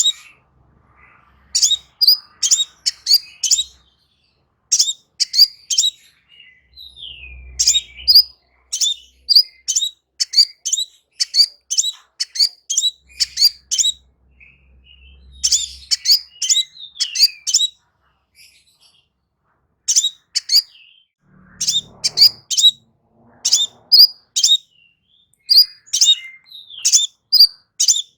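Crimson sunbird singing: runs of rapid, high, sharp chirps and short trills a few seconds long, separated by brief pauses.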